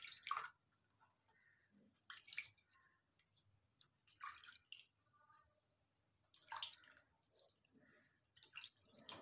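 Hands rubbing together and sloshing in a shallow plastic basin of water, washing off a dried homemade skin-cream mask. Faint short splashes come about every two seconds.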